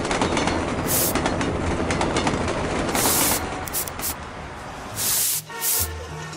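Loud hubbub of a large crowd of students talking at once in a hall, with several short bursts of hiss cutting in. The held low notes of background music run underneath.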